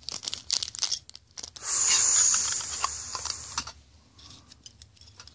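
Clear plastic packaging bag crinkling and being torn open to free a set of plastic guitar picks, with one long loud rip starting about one and a half seconds in and lasting about two seconds, then a few faint ticks as the picks are handled.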